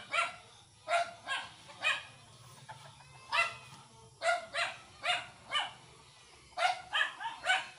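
A dog barking repeatedly in short runs of two or three barks.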